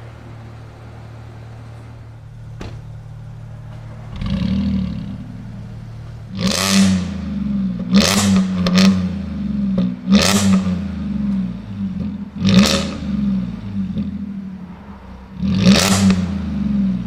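A supercar engine idling, then revved in five sharp throttle blips, each rising and falling quickly in pitch, with a smaller rev before them.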